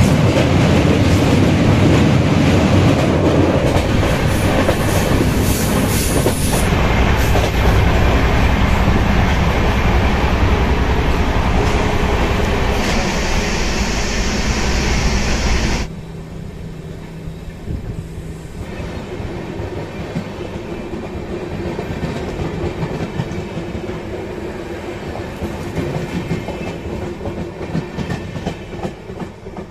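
Jan Shatabdi Express train with LHB coaches running on the track, a steady rumble of wheels on the rails. About halfway through the sound drops sharply and carries on quieter.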